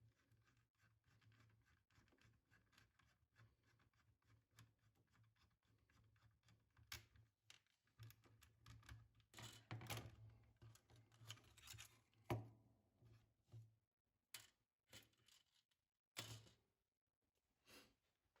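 Mostly near silence. From about seven seconds in come faint scattered clicks and brief rustles of keyboard parts being handled, ending a couple of seconds before the end.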